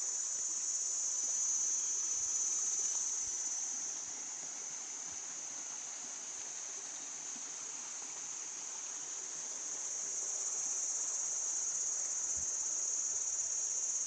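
Insects calling in a steady, high-pitched continuous chorus.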